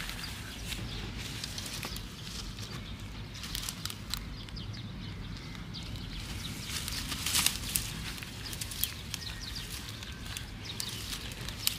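Dry grass crackling and rustling in irregular bursts, loudest about halfway through, over a low steady rumble.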